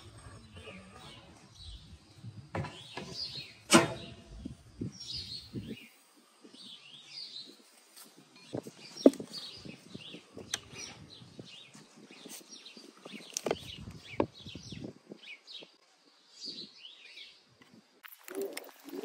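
Small birds chirping and singing throughout, with occasional sharp knocks and clinks of kitchen things being handled on a wooden table, the loudest about 4 and 9 seconds in.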